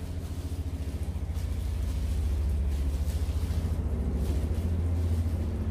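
A steady low hum runs throughout, with a few faint crinkles of thin plastic food-prep gloves as rice is pressed into sushi by hand.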